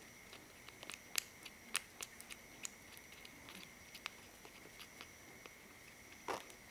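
A young kitten suckling milk from a feeding syringe: faint, irregular wet clicks and smacks of its mouth and tongue, with a brief louder sound near the end.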